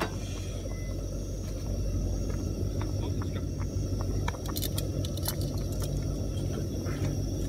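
Steady low rumble of a camp stove burning under a pot of simmering soup, with scattered light clicks and ticks in the second half.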